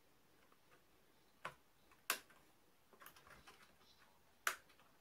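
Sharp plastic-and-metal clicks and light knocks from hands handling parts inside an open desktop PC case, as a memory module is put back into its slot. There is one click about one and a half seconds in, a louder one about two seconds in, a run of small ticks around three seconds, and a last sharp click near the end.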